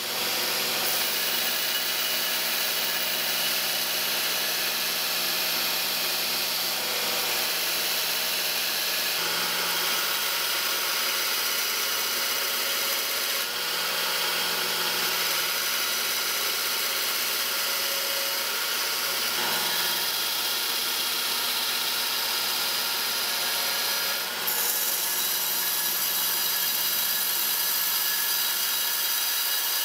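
Belt grinder running with its abrasive belt grinding the edge of a steel knife blank cut from an old saw blade, a steady grinding noise over the motor's hum.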